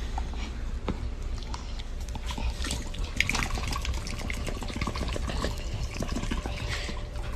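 Water moving, with many small irregular clicks and drips over a low steady rumble.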